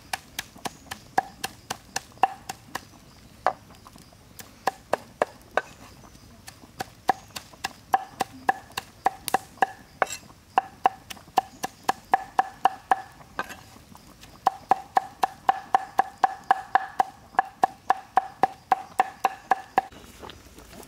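Cleaver chopping and mincing food on a round wooden chopping board: a steady run of sharp knocks, several a second, the blade ringing on many strokes, with a few short pauses between runs.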